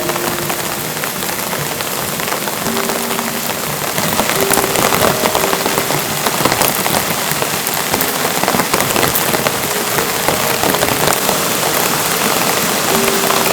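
Steady rain falling, with many separate drops hitting close by; it grows louder about four seconds in.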